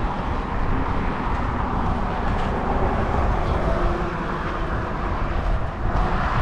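Steady rumbling outdoor noise: wind on the microphone mixed with the rumble of road traffic on the highway bridge alongside.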